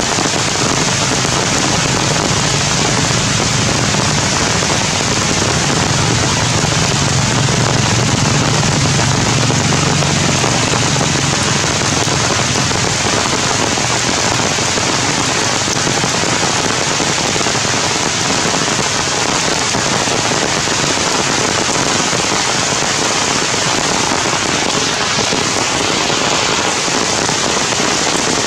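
Heavy rain falling steadily on tree leaves, a dense, even noise.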